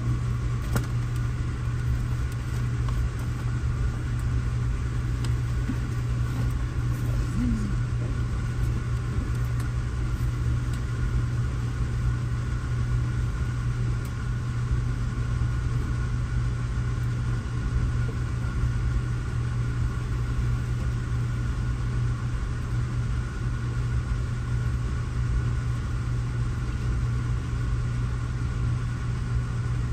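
Steady low rumble of a car driving, with even road and engine noise that holds constant throughout.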